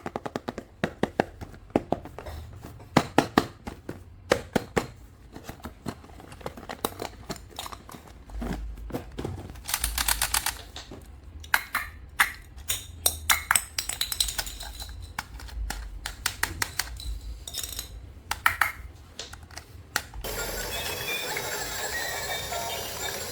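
Plastic toys and packaging being handled and unboxed: irregular sharp clicks and knocks. Background music comes in near the end.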